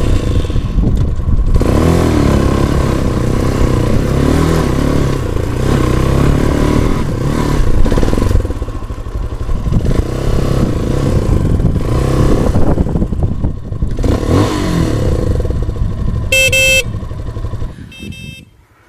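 Shineray X-Trail 250 dual-sport motorcycle's single-cylinder engine being ridden over sand, revving up and down with the throttle, and easing off briefly twice along the way. Near the end it drops away to a faint sound.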